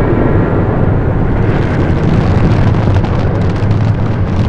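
The Mirage volcano attraction erupting: a loud, dense, deep rumble as its last flame bursts die down.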